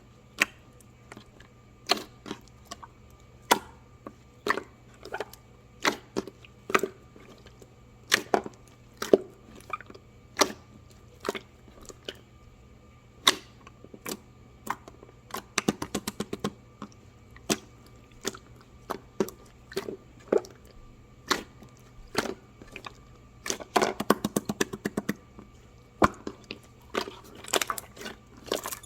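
Irregular sharp clicks and small cracks, sometimes singly and sometimes in quick clusters, over a faint steady hum.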